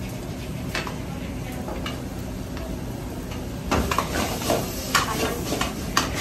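Metal ladles stirring and scraping in steel pans of simmering curry on a gas range, over a steady background hiss. The clinking and scraping become busier and louder from about four seconds in.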